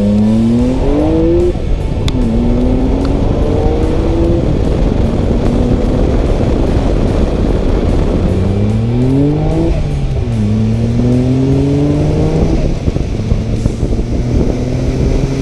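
Nissan Skyline R32 GT-R's RB26DETT twin-turbo straight-six engine heard on the move, accelerating with its pitch rising, then a gear change about two seconds in. It pulls up again and settles to a steady cruise, climbs once more around eight seconds, and the pitch drops near ten seconds before holding steady. It is running evenly on freshly fitted coil packs, with no sign of the earlier low-rpm misfire.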